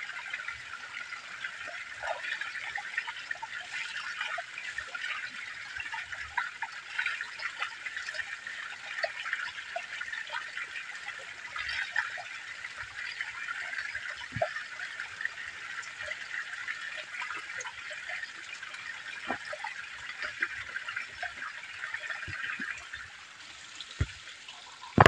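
A small mountain spring trickling and splashing as it falls down a rock face, the thin stream spattering over a hand held in it. The splashing is steady, with many small splashes, and gets a little quieter near the end.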